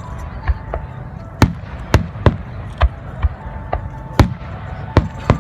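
Fireworks shells bursting overhead in a rapid, irregular series of about ten sharp bangs, some with a low rumbling tail.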